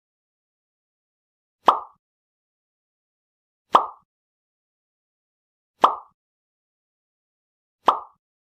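A short, sharp pop sound effect repeated four times at an even pace, about one every two seconds, each fading quickly, with silence between.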